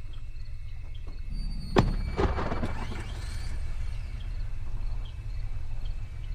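A car door thunks shut about two seconds in, with a second knock just after, over the low steady rumble of an idling car.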